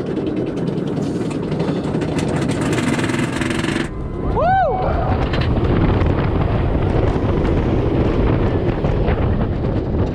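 Roller coaster train running on a hybrid steel-on-wood coaster, with a low rumble from the track and wind rushing over the microphone. About four and a half seconds in, a rider lets out one short yell that rises and falls in pitch.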